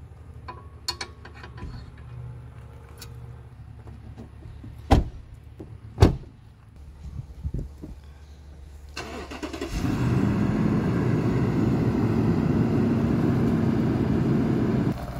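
Two loud thumps about a second apart. About four seconds later the Lexus LX570's V8 is started and settles into a steady idle.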